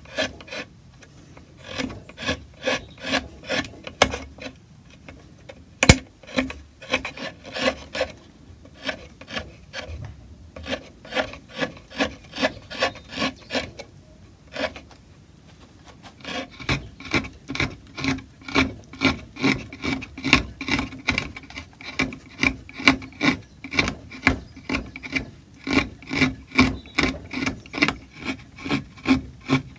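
Hand carving tool paring walnut in short, rapid scraping strokes, about two to three a second. A sharp click comes about six seconds in, and the strokes pause briefly near the start and about halfway.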